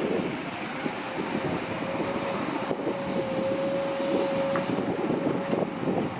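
Heavy diesel earthmoving machinery running under load, with a steady whine over a rough engine rumble; the whine cuts off about five and a half seconds in.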